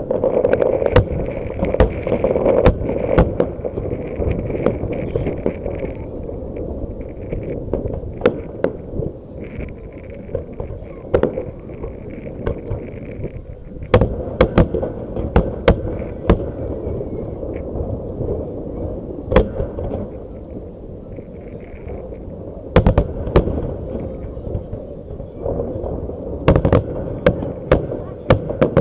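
Aerial firework shells bursting overhead in a salute display: loud bangs in volleys, a cluster near the start, more about halfway through, and a rapid run of bursts in the last few seconds, over a steady background rumble.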